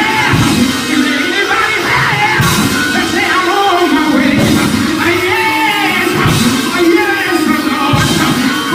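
Loud church praise music: singers' voices over a full band.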